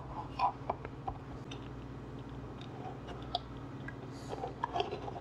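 Faint scattered clicks and light scrapes of a wire being worked through a 3D-printed plastic camera mount, nudged along with a thin metal tool, over a steady low hum.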